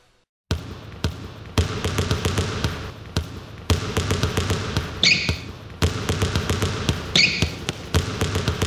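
Intro of an electronic dance track: sparse sharp percussive clicks over a steady hum, with a short high swish about every two seconds.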